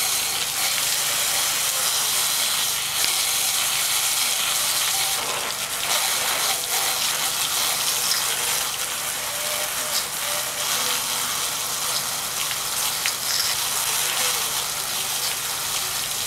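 Water jets from a hose spraying and splashing onto a 120mm computer fan, a steady hiss with no breaks.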